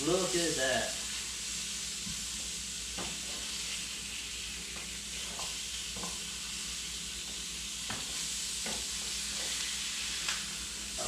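Sausages sizzling steadily in a frying pan, with a handful of light taps as a utensil knocks against the pan while they are turned.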